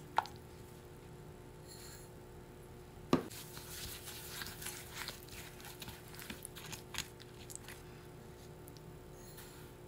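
Silicone spatula stirring a wet mix of mashed banana, melted butter and brown sugar in a bowl, with small scattered clicks and scrapes against the bowl. A sharp knock about three seconds in is the loudest sound.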